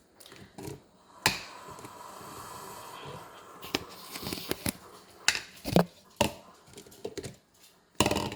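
Food containers being handled in a refrigerator: a sharp knock, a couple of seconds of steady rustling or scraping, then a string of clicks and knocks as things are moved and set down.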